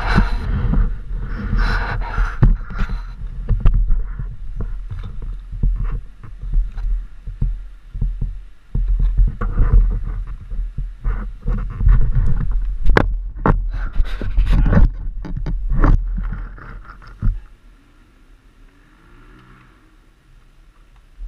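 Handling noise from a GoPro camera being moved and repositioned: rubbing against clothing and bag straps, with many sharp knocks and clunks over a low rumble. It goes much quieter about seventeen seconds in, once the camera is set down aimed at the bike.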